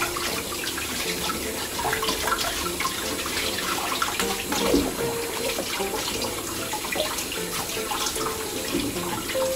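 Kitchen tap running into a sink while sunny lettuce leaves are rinsed under it, a steady stream with irregular small splashes.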